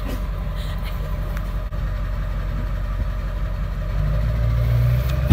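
Ford 7.3-litre Power Stroke V8 turbodiesel idling with a steady low drone, the engine picking up a little, louder and slightly higher, about four seconds in.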